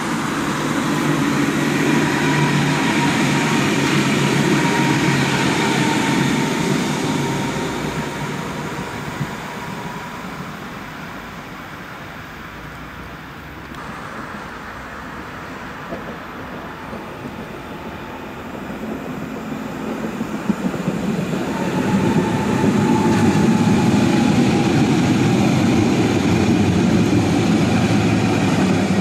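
Road vehicles passing in the first few seconds, then a lull, then a Leipzig tram approaching on its tracks from about 20 seconds in and passing close by, a rising rumble with a steady whine over it.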